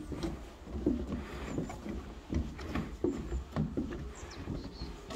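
Footsteps on a wooden boardwalk, knocking at a steady walking pace.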